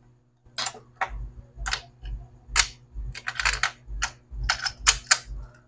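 Irregular light clicks and taps, a dozen or so, of small hard tools and phone parts being handled on a repair bench.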